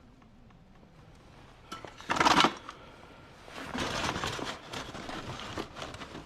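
Scrap items being handled and set down: one loud knock about two seconds in, then a couple of seconds of rattling and rummaging with many small clicks.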